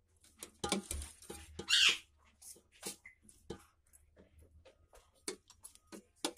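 Metal ladle clinking and scraping against steel cooking pots as chicken pieces and gravy are spooned onto a layer of boiled rice: scattered light clicks and taps, with two short scrapes in the first two seconds.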